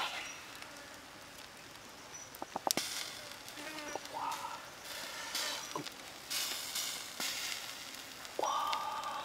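A whole fish is handled and turned on a wire grill rack over charcoal, with sharp clicks from the rack and faint sizzling. Two short high calls are heard, one about four seconds in and a longer one near the end.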